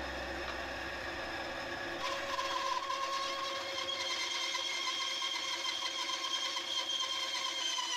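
Scroll saw running and cutting a block of padauk, its blade moving up and down; a steady whine sets in about two seconds in as the cut gets going.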